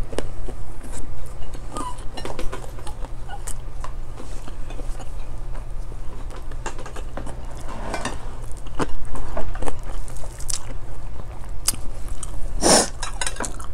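People chewing food with their mouths, with scattered small clicks of dishes and utensils over a steady low hum. A louder short noise comes near the end.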